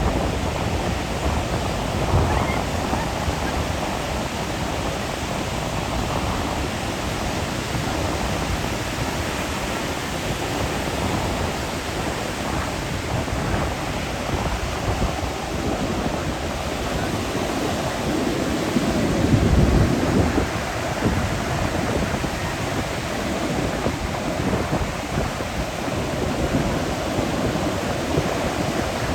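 Ocean surf breaking and washing in as a steady rush, swelling louder once about two-thirds of the way through.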